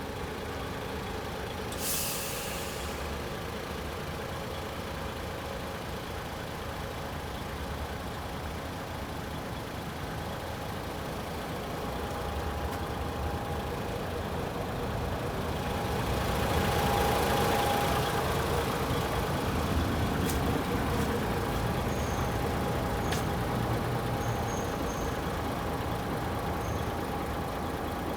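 Paccar 460 hp Euro 6 diesel engine of a DAF XF106 tractor unit idling steadily, with a short burst of air hiss about two seconds in. The engine sound swells louder for a few seconds past the middle, then settles.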